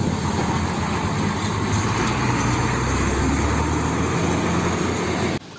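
Hino tanker truck's diesel engine running as the truck drives slowly along, a steady low engine note that cuts off suddenly near the end.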